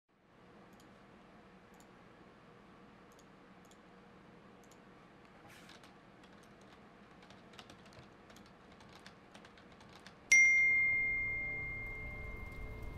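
Faint typing clicks on a computer keyboard, then, about ten seconds in, a single loud bell-like ding that rings on and slowly fades.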